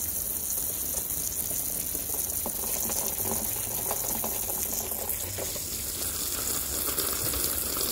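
Garden hose spraying a steady stream of water onto the soil of a mulched garden bed.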